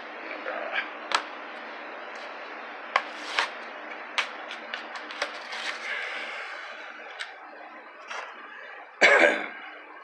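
A diecast toy car's plastic blister pack and card backing being cracked and torn open by hand: a string of irregular sharp cracks and crinkles, with a louder rasping burst about nine seconds in.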